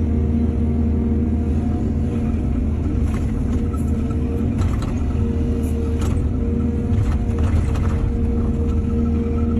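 Excavator's diesel engine running steadily, with a scatter of knocks and rattles from about three to eight seconds in.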